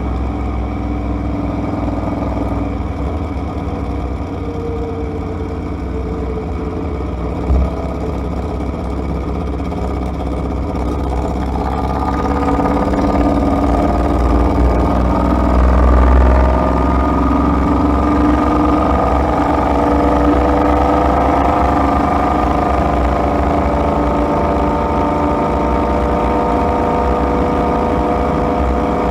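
A vehicle being driven, heard as steady engine, road and wind rumble. It grows louder from about twelve seconds in as the engine pulls harder. There is a short knock about seven and a half seconds in.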